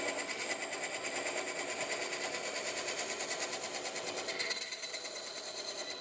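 A small woodworking power tool running with a fast, even rattle; its tone shifts a little about four seconds in.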